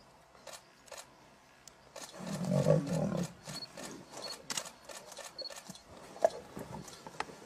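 A lion growls once, low and for about a second, a little over two seconds in, while an African buffalo gores it. Faint scattered clicks and scuffles are heard around it.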